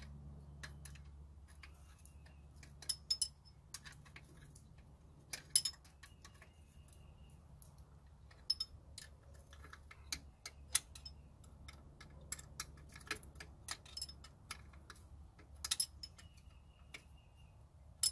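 Scattered sharp metallic clicks and clinks of a hand wrench working the last two nuts loose, some in quick little runs, the loudest about five and a half seconds in.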